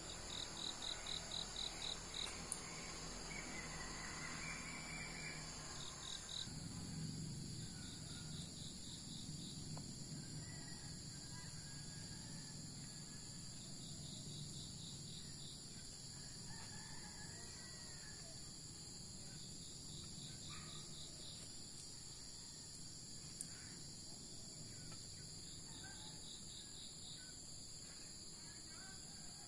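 Crickets and other insects trilling steadily, with short runs of rapid chirps repeating every few seconds. A bird calls briefly now and then.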